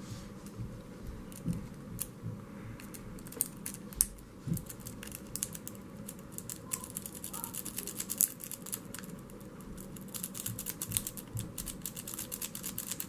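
Rake pick scraping in and out over the pin tumblers of a Master Lock No. 3 four-pin padlock: rapid light metallic clicking, scattered at first, then fast and dense from about five seconds in.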